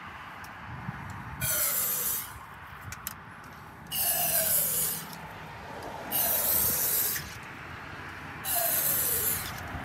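Aerosol can of fogging oil sprayed into a jet ski engine's open spark plug holes in four hissing bursts of about a second each, with short pauses between. The oil coats the cylinders for winter storage.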